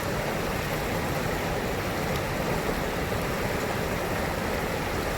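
Loxahatchee River water rushing steadily, an even wash of sound.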